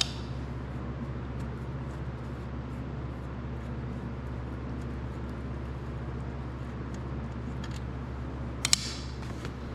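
Hand tools clicking on metal while the engine's connecting rod cap bolts are worked loose: one sharp click at the start and a quick pair of clicks near the end, over a steady low hum.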